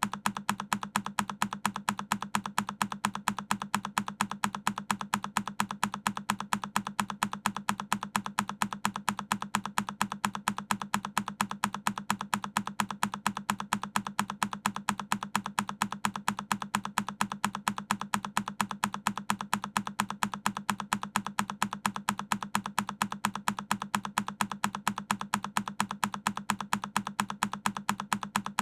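A single key on a Keychron K10 mechanical keyboard pressed over and over as a loop, evenly spaced clicks several times a second without a break.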